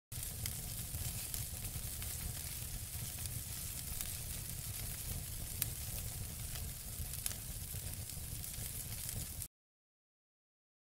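Crackling fire sound effect: a steady hiss with scattered sharp pops, cutting off suddenly near the end.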